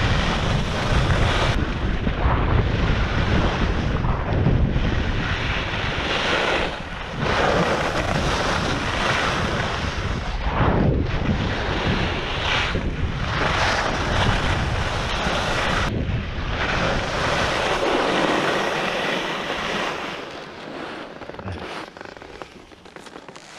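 Wind buffeting the microphone and ski edges scraping over hard-packed snow on a fast descent, with a swish at each turn every second or two. The rush fades near the end as the skier slows.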